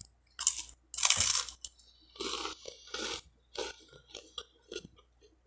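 Crunching and chewing of buttered French-bread toast crisped in a sandwich maker: two loud crunches in the first second and a half, then chewing that grows softer and dies away near the end.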